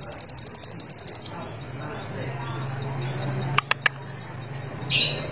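Caged long-tailed shrike (cendet) singing: a rapid high trill for the first second, then a string of softer, separate high notes. Three sharp clicks come a little past halfway, and a short harsher call comes near the end.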